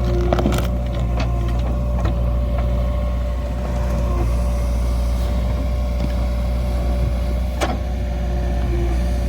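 JCB backhoe loader's diesel engine running steadily, with a few sharp knocks, the clearest near the end.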